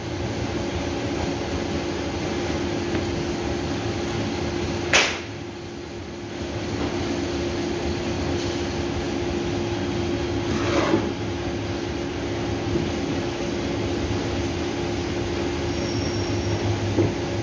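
Workshop machinery running with a steady hum and a constant tone. A sharp knock comes about five seconds in and a brief clatter near eleven seconds.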